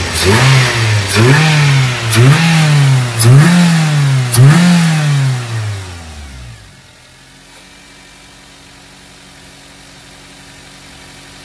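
A Toyota Avanza's 1.3-litre four-cylinder petrol engine is revved five times in quick succession, each rev rising and falling, then settles to a quiet, steady idle about six and a half seconds in. This is a test run after the ignition coils were insulated against spark leakage, and the mechanic hears no misfire clatter.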